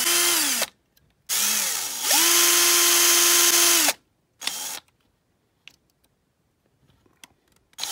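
Electric drill drilling out a rivet post on a die-cast toy car, run in short trigger bursts: the motor whine climbs as each run starts, holds steady, and drops away as it stops. Two longer runs and a brief blip in the first half, a few small clicks, then the drill starts up again at the very end.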